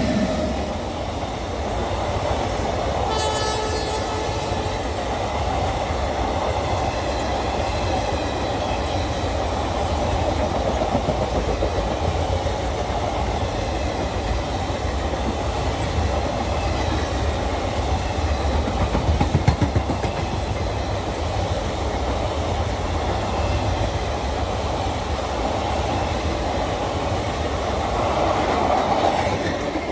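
A long rake of converted ICF auto-carrier (NMG) coaches passing at speed: a steady rush and rumble of wheels on rail with clatter over the joints. A short train horn blast sounds about three seconds in, and a burst of louder wheel clatter comes around two-thirds of the way through.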